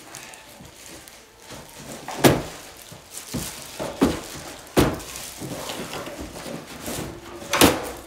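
Packaging being handled while a new all-in-one liquid cooler is unboxed: cardboard and plastic-wrapped parts rustling, with several sharp knocks, the loudest about two seconds in and near the end.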